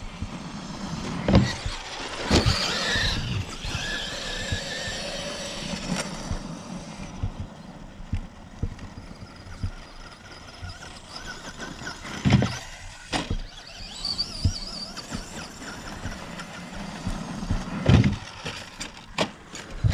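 Electric Traxxas RC trucks running on gravel: motor whine rising and falling as they speed up and slow, with tyres scrabbling on loose gravel. A few dull thumps, the loudest about 2.5 and 18 seconds in.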